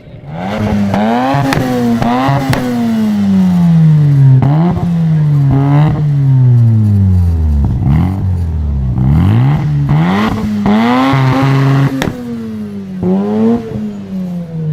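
A modified car engine is revved hard through its exhaust in a series of quick blips. Between the blips the revs sink slowly back down, and a few sharp cracks come out of the exhaust along the way.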